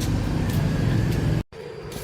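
A vehicle engine running steadily at a low pitch, cut off suddenly about one and a half seconds in.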